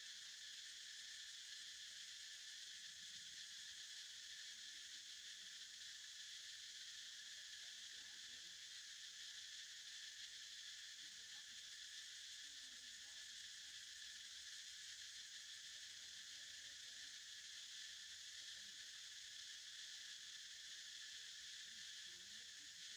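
Faint, steady insect chorus: a continuous high buzz that never breaks.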